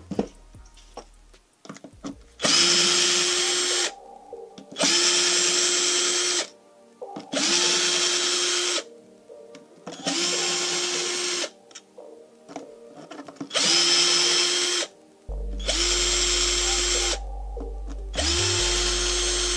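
Electric drill-driver spinning out the already-loosened crankcase screws of a Minarelli AM6 moped engine. It runs in seven short bursts of about a second and a half each, the motor whine rising as it spins up at the start of each burst. Small clicks of the bit and screws come between the bursts.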